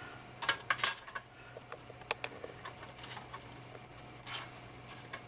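Metal tools and coilover parts being handled, giving light clinks and clicks: a cluster of louder knocks about half a second in, then scattered ticks.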